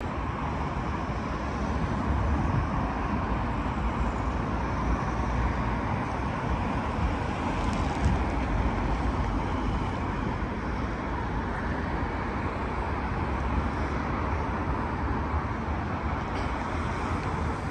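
Road traffic going round a roundabout: a steady wash of car engines and tyre noise with a low rumble, no single vehicle standing out.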